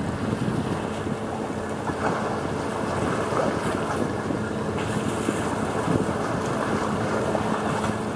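Wind buffeting the microphone, with small waves washing against the concrete tetrapods of the breakwater.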